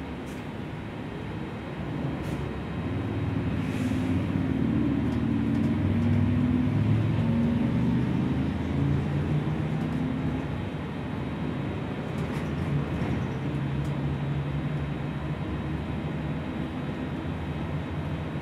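Gillig low-floor city bus heard from inside, its engine and drivetrain running with road noise; the engine note climbs and grows louder over the first several seconds, then eases and holds steady, with a few brief rattles.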